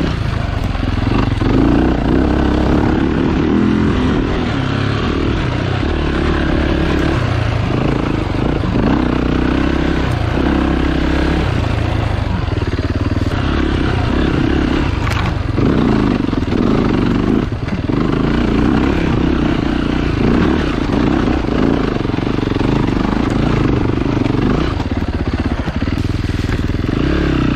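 Off-road motorcycle engine running as it is ridden along a trail, the engine note rising and falling every second or two as the throttle is worked.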